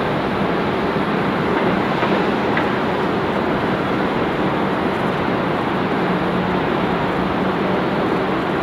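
Steady rushing rumble of jet engines from a Boeing 787-9 with GE GEnx-1B turbofans on final approach, with a faint low hum running through it.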